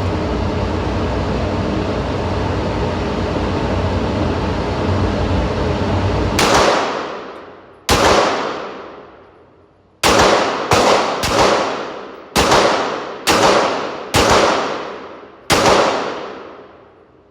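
A steady rushing noise stops about six and a half seconds in. Nine gunshots follow at irregular intervals, a few close together, each with a long echoing decay.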